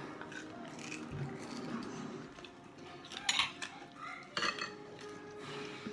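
Eating utensils clinking and scraping against plates, with two sharper clinks a little past the middle.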